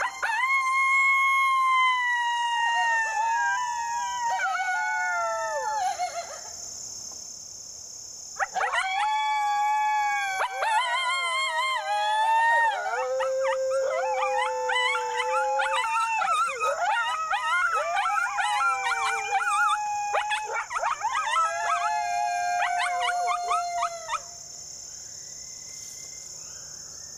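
Coyote howls blown on a hand-held howler call: one long howl that falls in pitch and breaks. After a short pause comes a longer run of several howls and yips overlapping, which fits coyotes answering the call. Insects drone steadily and high throughout.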